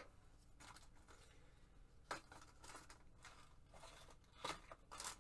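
Near silence: room tone with a few faint, brief rustles of paper being handled.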